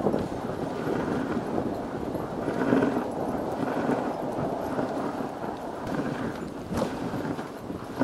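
A dog sled running along a snow trail behind its husky team: a continuous scraping rush of the runners over the snow with the dogs' rhythmic footfalls, and a single sharp knock about seven seconds in.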